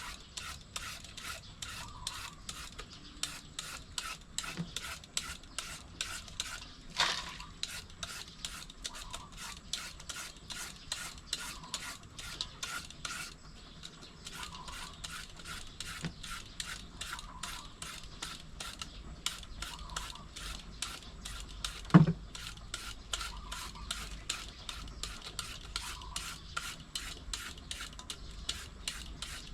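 Green papaya being shredded by hand: quick, even rasping strokes of a shredder against the firm fruit, about three a second. There is a knock about seven seconds in and a louder thump about twenty-two seconds in.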